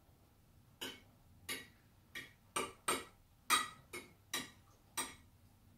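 Metal forks clinking against a plate while picking up scraps of scrambled egg: about nine sharp taps at uneven intervals.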